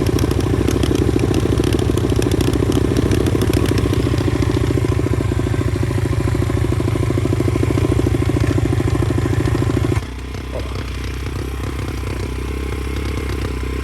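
Pit bike's small single-cylinder four-stroke engine running hard under steady throttle while riding, then about ten seconds in the throttle shuts and it drops to a quieter, lower run.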